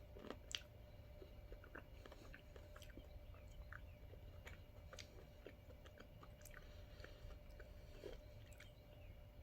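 Faint chewing and small mouth clicks of a person eating ice cream with cookie dough and brownie pieces, scattered irregularly.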